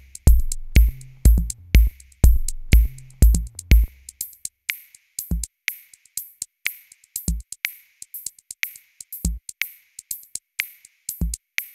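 Background music: an electronic drum-machine beat with a heavy kick drum and bass. The kick and bass drop out about four seconds in, leaving crisp high ticks with a single kick every two seconds or so, until the music stops abruptly.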